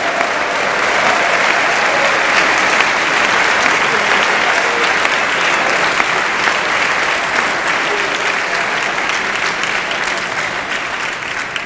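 A large audience applauding steadily, the clapping fading away near the end.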